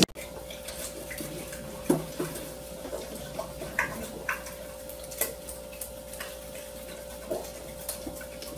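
A spoon clicking and scraping in a small cup, a few scattered taps, over a steady electrical hum.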